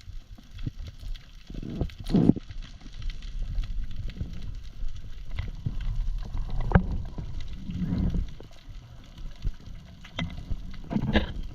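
Water gurgling and sloshing around the camera's microphone over a low rumble, with scattered small clicks. Louder gurgles swell about 2 s in, about 8 s in and near the end.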